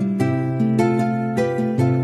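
Background music of plucked strings, harp- or guitar-like, with a steady low bass note and new notes struck every few tenths of a second.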